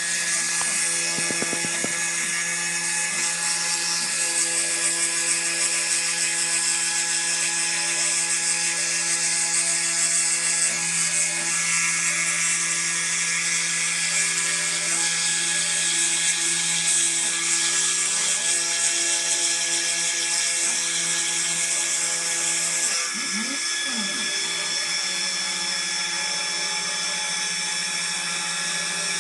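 Small desktop CNC engraver's spindle running with a fine engraving bit, milling copper traces into a copper-clad PCB: a steady high whine with a cutting hiss, over a lower motor hum. The hiss eases a little about 23 seconds in.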